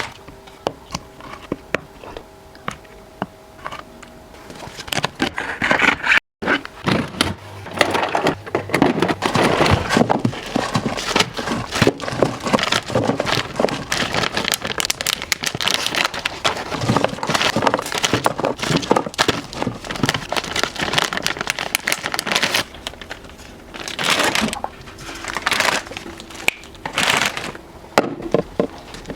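Plastic bags and food packaging crinkling, with many small clicks and knocks of containers and items being handled. It is lighter for the first few seconds, breaks off briefly about six seconds in, then becomes a dense run of rustling and clatter.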